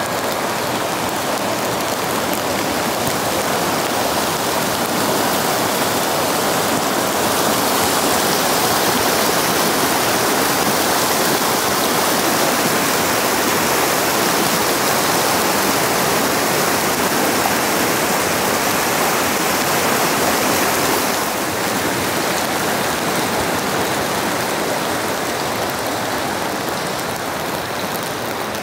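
Steady rain falling, with the rush of a fast-flowing stream louder through the middle, from about seven seconds in until about twenty-one seconds.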